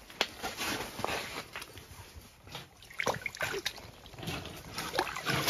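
Water splashing and sloshing in an ice-fishing hole as a lake trout is pulled up through it, with scattered knocks and rustles.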